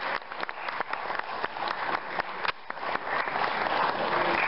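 Audience applauding, a dense patter of many hands clapping that grows louder and fuller toward the end.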